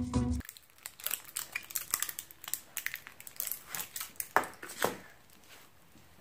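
Red kinetic foam, a stretchy putty packed with tiny foam beads, squeezed and pulled by hand, giving quick crackling and crinkling, with two louder squeezes about four and a half seconds in, then dying away. A tail of music cuts off abruptly in the first half second.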